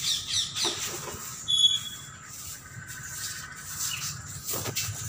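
Birds calling: a quick run of short, falling high chirps at the start, one sharp squawk about a second and a half in, then fainter chirps and squawks.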